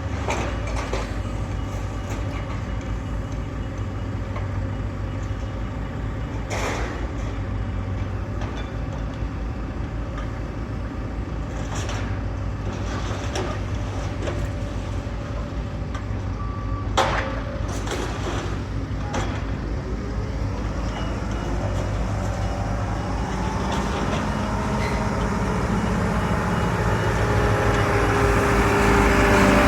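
Heavy diesel engine of a demolition machine running steadily, with a few sharp knocks, then revving up and growing louder over the last several seconds as it comes under load.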